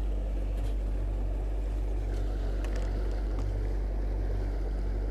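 Small outboard motor running steadily at trolling speed, a low even drone.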